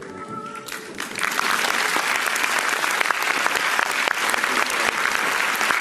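Audience applause, breaking out about a second in and holding steady, dense with many hands clapping: the ovation at the end of a dance piece as the stage goes dark.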